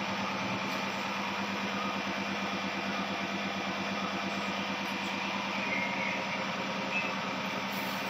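Electric suction machine running with a steady hum while a newborn's mouth and nose are being suctioned through a thin catheter.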